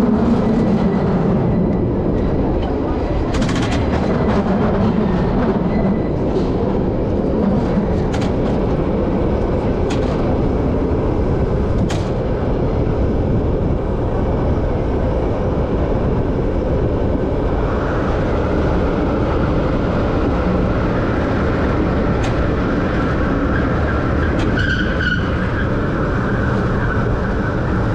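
The 1896 Market Street Railway streetcar No. 578 running along its rails: a steady, loud rumble of wheels on track and its two GE 1000 motors, with occasional sharp clicks.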